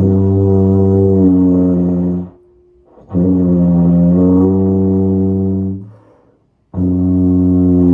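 B&S PT6 CC contrabass tuba playing long held low notes around G and F sharp, three sustained tones of two to three seconds each with short breaths between. The pitch is bent down and back up within a held note: a lip-bend exercise.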